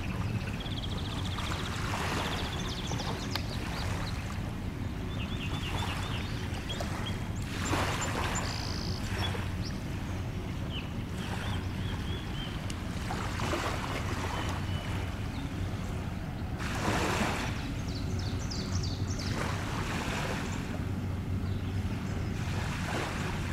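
Small waves washing onto a shoreline in surges every few seconds, with songbirds chirping in short trills over a steady low hum.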